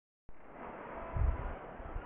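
Outdoor background noise with low, irregular rumbles of wind buffeting the microphone, strongest about a second in.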